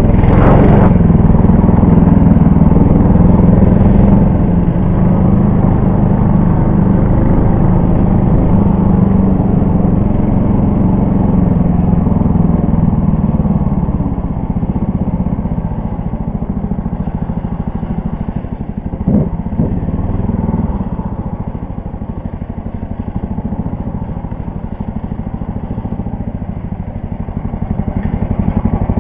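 Engine of a Lider 3N motorised snow tow running steadily under way, louder for the first half, easing off about halfway through and picking up again near the end.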